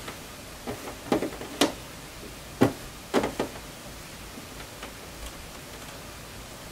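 Several light clicks and knocks of handling at a sewing machine during the first three and a half seconds, then only faint steady background.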